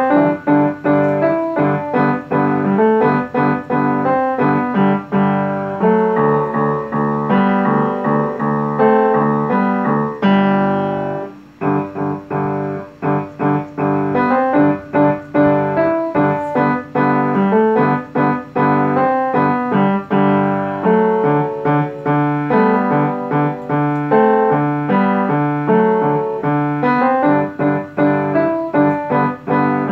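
Upright piano played with both hands, a steady flow of notes and chords; about ten seconds in a chord is held and let go, then a short break before the playing carries on.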